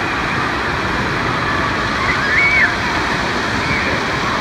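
Wave-pool waves rushing and breaking in a steady wash of water noise. About two seconds in, a brief high-pitched shriek rises and falls over it.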